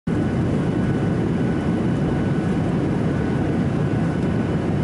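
Jet airliner cabin noise: a steady engine-and-air rumble, with a faint steady whine above it.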